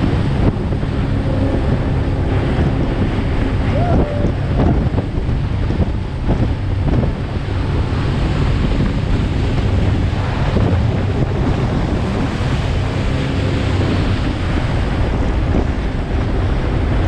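Wind buffeting the microphone over the steady drone of a speeding tour boat and water rushing past its hull through river rapids.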